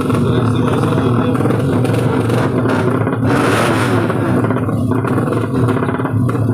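Tuned 200cc four-stroke underbone drag bike engines running, with a surge of engine noise about three seconds in as one revs up.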